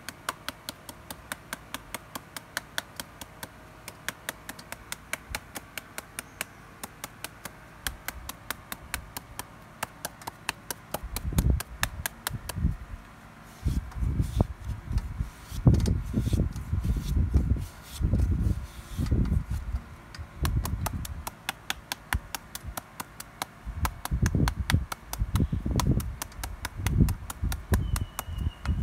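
A knife blade hacking over and over into a whole peeled green papaya to score it for shredding: a steady run of crisp taps, about four a second. From about a third of the way in, heavier dull thuds join the taps.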